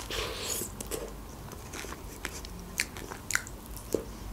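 A bite into the crisp crust of a hot McDonald's pastry pie, crunching for about half a second, then close-miked chewing with scattered wet mouth clicks.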